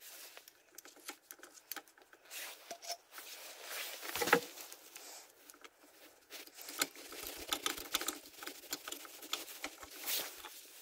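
Rustling and small irregular clicks of gloved hands and a jacket brushing close to the microphone while working on a small engine's carburettor, with one louder dull knock about four seconds in.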